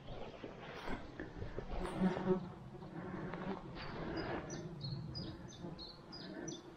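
An insect buzzing close by, loudest about two seconds in, over soft footsteps through grass. In the second half a bird repeats short high notes.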